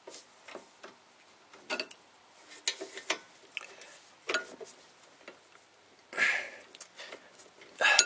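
Hand wrenches clicking against the steel caliper bolts of a car's rear brake caliper as the bolts are tightened: separate sharp metal clicks about a second apart, with a short rattling burst about six seconds in.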